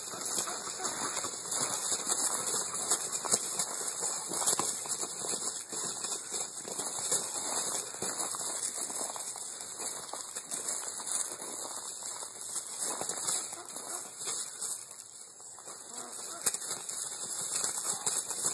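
Muscovy drakes fighting: wings beating and bodies scuffling in dry leaf litter, a continuous crackling rustle with frequent sharp clicks.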